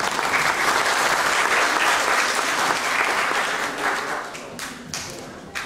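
Audience applauding, dying away about four seconds in, with a few scattered claps after.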